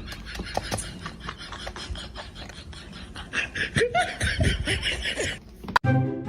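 Laughter over clicks and rustling noise. Near the end the sound cuts off sharply and music begins.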